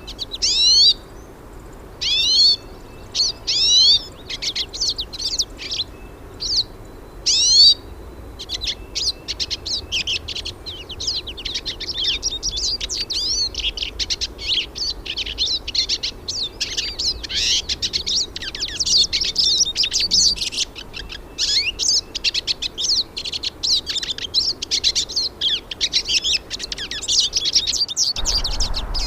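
Hooded siskins (pintassilgos) singing: a few separate, fast twittering phrases with short pauses for the first eight seconds or so, then a near-continuous run of rapid, high twittering song.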